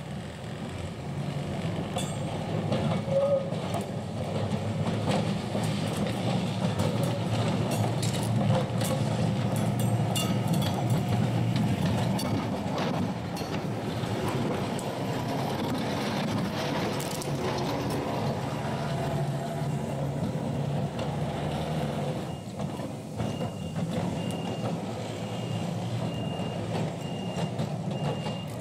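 Victorian Railways electric tram No. 41 running past on rails, its motors humming and its wheels rumbling and clicking over the track, loudest around the middle as it passes close. Near the end a high beeping starts, about once a second: the level crossing warning signal.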